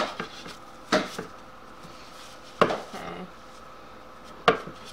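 Four sharp knocks and clatters of hard parts handled on a countertop while the metal housing of a vacuum pump is wiped with a paper towel.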